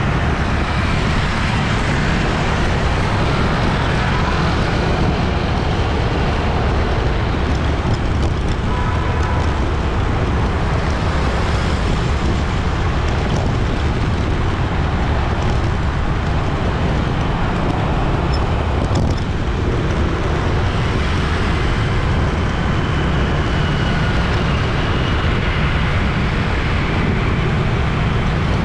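Busy city street traffic: a steady, dense rumble of passing motor vehicles.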